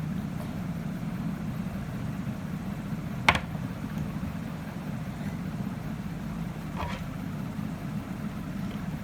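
Steady low background hum. A sharp plastic click about three seconds in and a fainter one near seven seconds come from the toy figure's tail being pushed against the body while it fails to lock in place.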